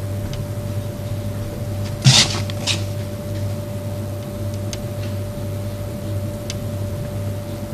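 A marker writing on a board: a few short scratchy strokes, the loudest about two seconds in, with a few faint ticks. A steady low hum with a faint steady tone runs underneath.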